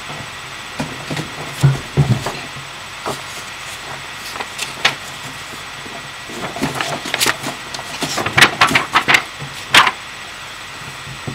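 Paper being handled close to the microphone: scattered rustles and knocks, coming thick and fast in the second half as a sheet is moved about in front of the camera. Under it runs a steady hiss.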